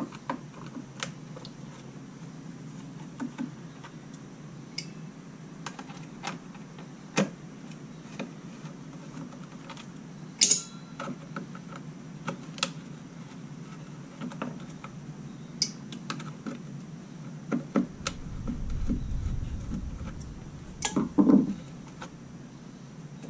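Scattered light clicks and taps of a screwdriver working at screws and parts in a plastic chainsaw gearbox housing. A low rumble comes in for a couple of seconds near the end, then a louder clatter as the screwdriver is set down on the wooden bench.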